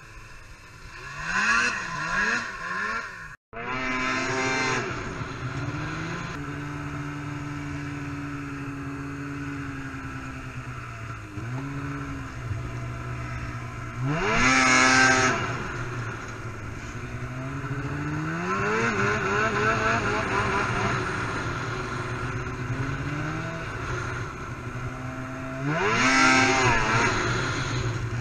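Snowmobile engine running on board as the sled rides through snow, revving up and down with the throttle: sharp rises in pitch about two seconds in, around four, fourteen, nineteen and twenty-six seconds, and a steadier drone between. The sound cuts out for an instant about three and a half seconds in.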